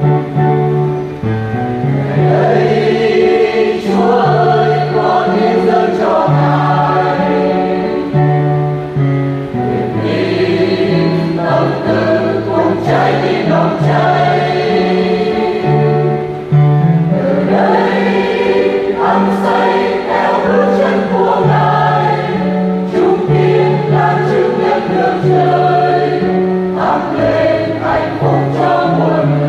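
Church choir singing a Vietnamese Catholic hymn in parts, over an instrumental accompaniment with a bass line that steps from note to note.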